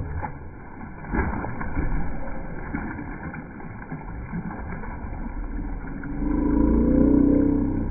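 Slowed-down, deep water sloshing and splashing from a bulldog swimming, with a few knocks early on and a louder low droning swell about six seconds in.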